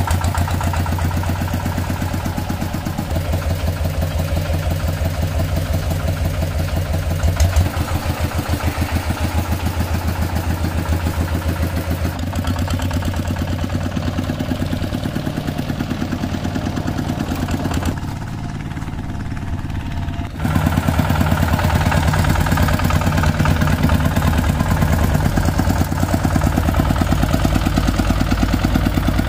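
Kubota two-wheel walking tractor's single-cylinder diesel engine chugging steadily with a rapid, even beat as it pulls a loaded trailer. It goes quieter for a couple of seconds about two-thirds of the way through, then comes back louder.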